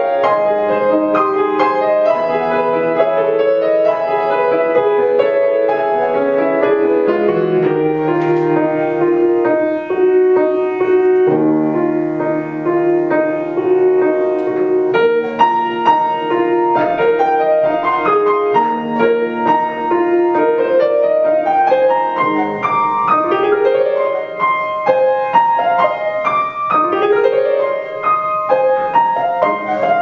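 Two grand pianos playing a classical duet together, with sweeping rising and falling runs over the last third.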